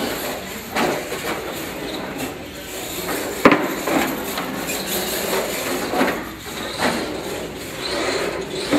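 Radio-controlled monster trucks running on carpet and over wooden ramps: a steady rough rushing noise broken by a series of sharp knocks and clatters, the loudest about three and a half seconds in.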